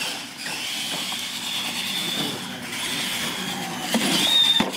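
Radio-controlled monster trucks racing on a concrete floor, their electric motors giving a steady high whine over tyre noise. The sound grows louder near the end as a truck comes close up a ramp, and the whine briefly rises in pitch.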